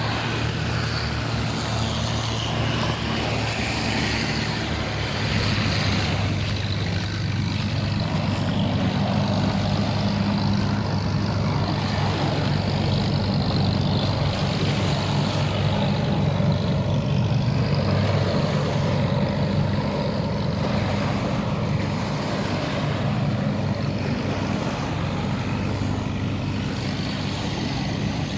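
An engine running steadily with a low hum, getting somewhat louder in the middle.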